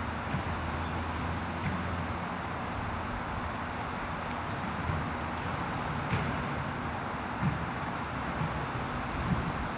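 Steady outdoor background noise, a low rumble with some wind on the microphone, broken by a few faint soft knocks.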